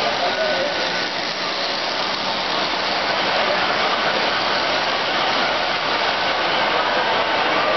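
Model trains running on three-rail O-gauge track: a steady rumble of metal wheels and motors as a freight train of flatcars passes close by.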